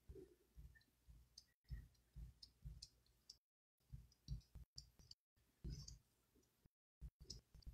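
Near silence with faint, irregular clicks and soft knocks from a small squeegee and fingers working ink through a silkscreen transfer on a cotton towel.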